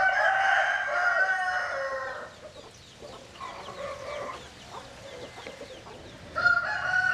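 Roosters crowing: a long, loud crow over the first two seconds, a fainter crow around four seconds in, and another loud crow starting near the end.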